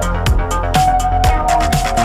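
Electronic dance music with a steady kick drum about twice a second, bright cymbal hits between the beats, and a held synth note that comes in just under a second in.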